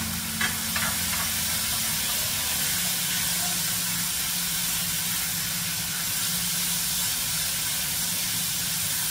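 Chopped bacon frying in a skillet on high heat: a steady sizzle, with a couple of light clicks in the first second.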